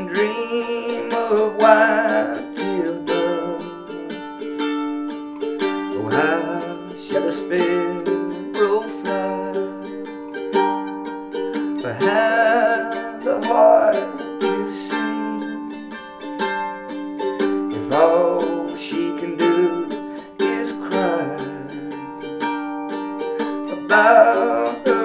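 Acoustic guitar playing an instrumental passage of a slow folk song, picked phrases coming back about every six seconds over a steady held tone.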